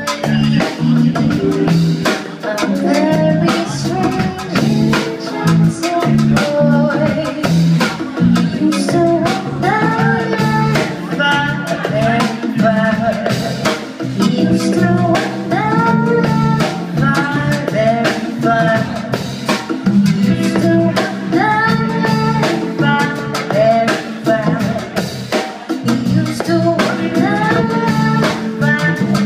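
Live band playing, with a drum kit keeping a steady beat over a bass line, and a wavering melody line coming in strongly over the top about ten seconds in.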